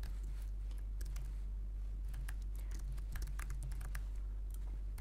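Typing on a computer keyboard: an irregular run of key clicks over a steady low hum.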